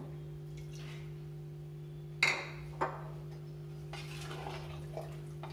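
Kitchen utensils on a cooking pot: a sharp ringing clink about two seconds in and a smaller knock just after, then a spoon scraping as it stirs the pot near the end, over a steady low hum.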